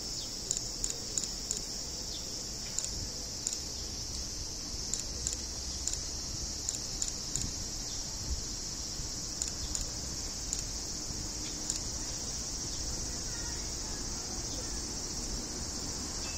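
A summer cicada chorus: a steady high-pitched hiss with short sharp ticks over it now and then.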